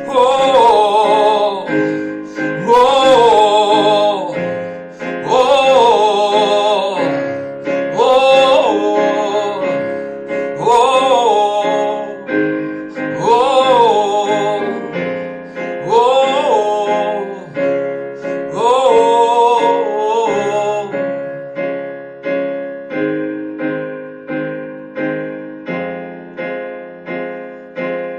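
Song passage on piano and keyboard with a wordless sung phrase that rises and falls, repeating about every two and a half seconds. The voice drops out about 21 seconds in, leaving the piano playing steady repeated chords.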